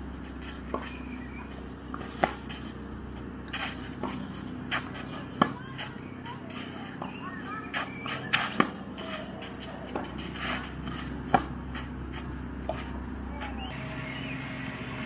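Tennis ball struck back and forth in a rally on a clay court. The near player's racket hits are the loudest, sharp pops about every three seconds, with fainter hits and ball bounces from the far end between them.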